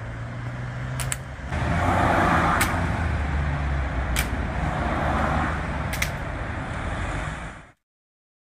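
Steady outdoor rushing noise with a low rumble, like road traffic going by; it swells about a second and a half in. A few short sharp clicks sound over it, and it cuts off abruptly near the end.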